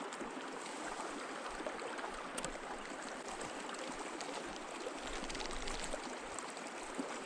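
A small creek flowing: a steady rush of running water.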